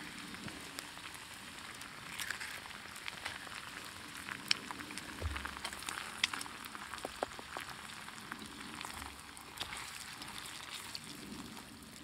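Eggs, peppers and onions frying in butter in a metal camp pan over campfire coals: a steady sizzle with scattered clicks.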